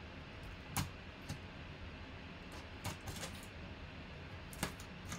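A knife cutting through the sealing tape along the edge of a large cardboard box, heard as a handful of short, sharp clicks and scrapes spread across a few seconds over a faint steady hum.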